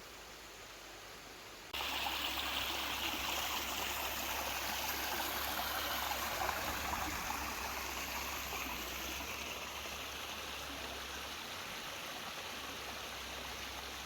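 Mountain valley stream rushing steadily. A softer hiss gives way abruptly to the louder water about two seconds in, and the rush eases slightly toward the end.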